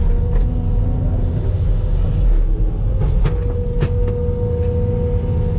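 Excavator's diesel engine and hydraulics running under load, heard from inside the cab, as the bucket dumps soil into a dump truck and swings back to dig. A couple of sharp knocks come a little past three seconds, followed by a steady whine that holds for about two seconds.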